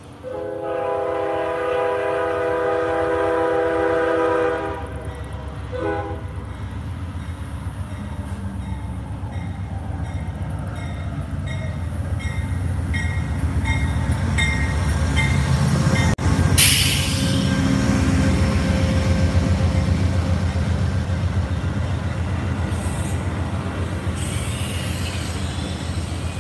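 Amtrak GE P42DC diesel locomotive sounding its horn in one long multi-note blast, then a short blast, as the train arrives. Then the locomotive's engine and the double-deck passenger cars rumble past, with a sudden loud hiss of air about two-thirds through.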